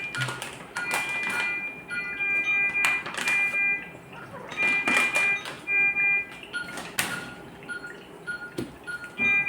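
Electronic beeping at several fixed pitches, each beep held for up to about a second and overlapping in an uneven pattern, like bedside patient monitors sounding, with a few sharp clicks and knocks among them.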